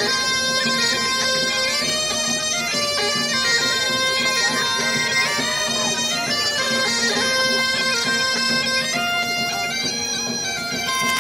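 Instrumental music: a melody of held notes stepping up and down over a continuous low drone.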